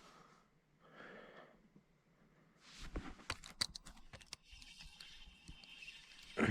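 Faint clicking and rustling, like gear or tackle being handled, with a quick cluster of sharp clicks about three to four seconds in.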